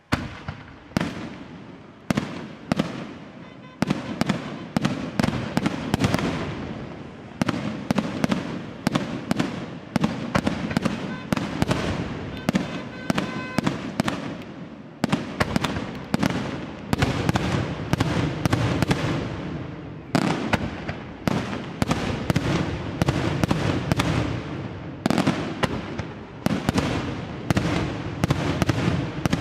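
Aerial firework shells bursting in quick succession, about two or three sharp bangs a second, each followed by an echoing rumble. The barrage begins abruptly.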